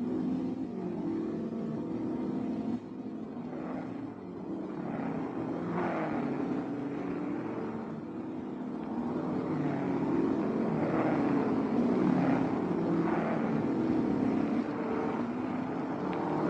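Racing sports car engines running, then a sudden change about three seconds in, followed by several cars speeding past one after another, each pass rising and then falling in pitch.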